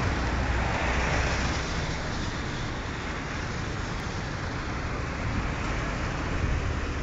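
Steady street traffic noise: a continuous low rumble with hiss from cars and a bus running close by.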